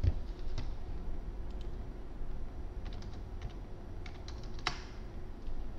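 Scattered keystrokes on a computer keyboard as a figure is typed in, with a louder click about three-quarters of the way through.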